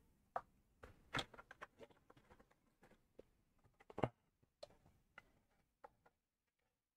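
Faint, scattered clicks and taps of hands handling a small plastic isopropanol bottle and cotton swabs on a workbench, the loudest tap about four seconds in, dying away after about six seconds.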